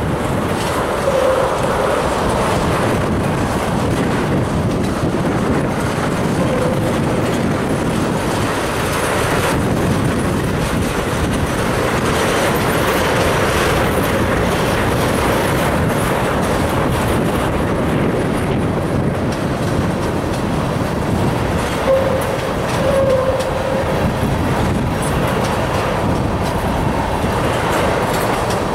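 Empty railroad tank cars rolling past steadily: the rumble and clickety-clack of steel wheels on the rails, with a few brief wheel squeals now and then.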